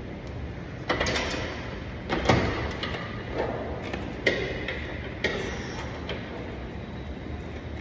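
Metal clanks from a gym leg machine being worked through repetitions, each with a short ring, about one a second.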